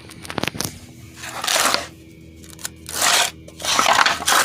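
Template material being cut: a few light clicks, then three rasping strokes.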